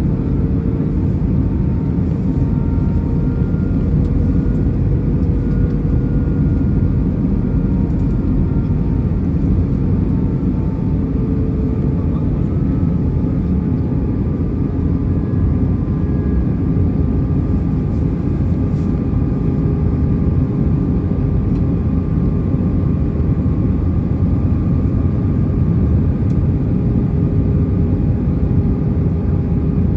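Cabin noise inside an Airbus A319 airliner in flight, heard from a window seat over the wing. Engines and rushing air make a steady deep roar, with faint humming tones that slowly drift in pitch.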